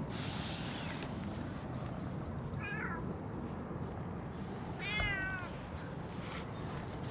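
Cat meowing twice: a short meow about two and a half seconds in, then a longer meow that wavers in pitch about five seconds in.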